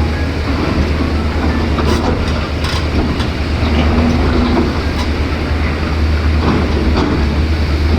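Caterpillar 336 excavator's diesel engine running under load, a deep steady rumble, with several sharp clanks and scrapes from the bucket and rock during digging and loading.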